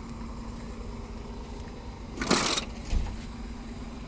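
An engine idling with a steady low hum, broken a little past two seconds in by a short metallic clatter and, about half a second later, a dull thump.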